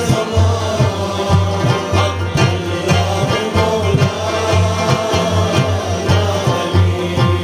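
A man sings a Ismaili Ginan devotional song, accompanied by a plucked Afghan rubab and a regular beat on a frame drum.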